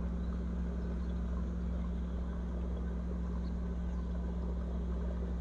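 Steady low hum with a faint, even hiss above it, unchanging throughout.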